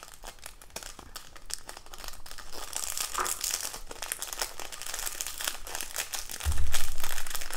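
Small clear plastic bag crinkling as it is squeezed and shaken to tip confetti and glitter into a plastic cup, a dense fine crackle. A dull bump near the end.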